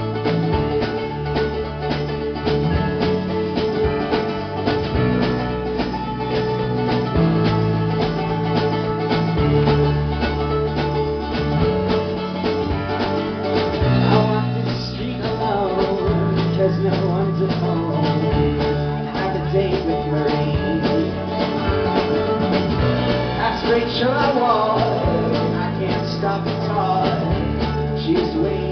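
Live folk-rock band playing: acoustic guitar and mandolin strumming a steady rhythm over keyboard and a low bass line. A man's voice starts singing about halfway through.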